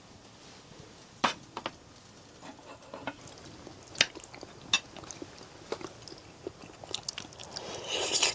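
A person eating close to the microphone: chewing and crunching, broken by a few sharp clicks. A brief rush of noise comes near the end.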